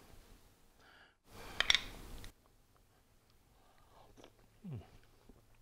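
A metal spoon clicking and scraping against small glass bowls as sour cream is dolloped onto a bowl of chili, a sharp cluster of clinks about a second and a half in. Then quiet eating from the spoon, with a brief low 'mm' near the end.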